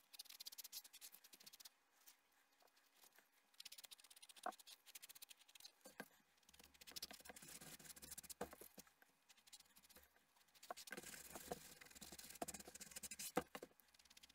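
Faint scratchy rubbing of a dye-soaked sponge on leather and the paper towel beneath it, coming in short spells, as a coat of leather dye is wiped on. A few light clicks and taps are heard along the way.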